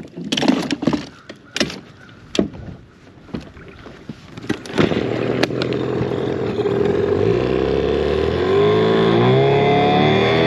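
A few sharp knocks on the john boat, then a small outboard motor starts about five seconds in and revs up. Its pitch climbs, then it settles into steady running as the boat heads off.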